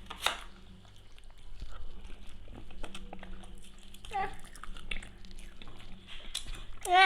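A person chewing a bite of chicken wing in sauce close to the microphone, making many small irregular wet clicks and smacks. A short pitched vocal sound comes about four seconds in, and a brief louder one near the end.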